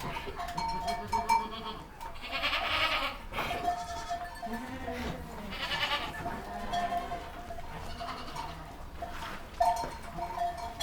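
Goats bleating repeatedly, with the loudest calls about two seconds in and again around six seconds.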